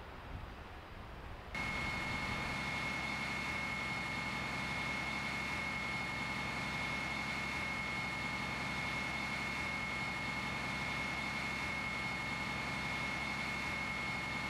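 Engine noise with a steady high whine over it, starting abruptly about a second and a half in and then holding steady.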